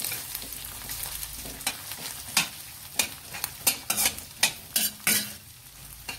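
Spatula scraping and clinking against a stainless steel pan as scrambled egg and meatball slices are stir-fried, over a steady sizzle of hot oil. The scrapes come irregularly and grow more frequent in the second half.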